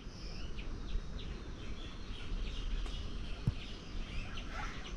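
Small birds chirping, a rapid run of short high calls, over a low steady rumble, with a single sharp click about three and a half seconds in.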